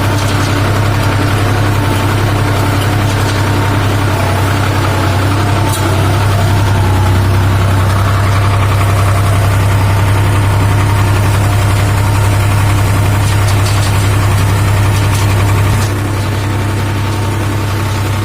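New Holland 4710 tractor's diesel engine running at a steady working speed while powering a straw baler through the PTO. The steady hum grows a little louder about six seconds in and eases off slightly near the end.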